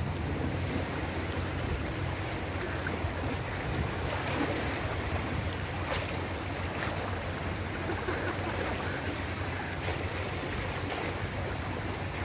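Small sea waves lapping and washing over a shallow shore, a steady rushing with a low rumble under it and a few faint clicks.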